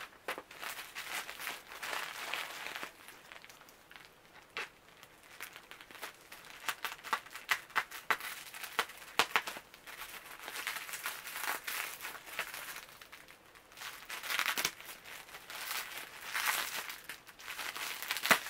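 Clear plastic packaging crinkling and rustling as hands handle a wrapped parcel, in irregular crackles.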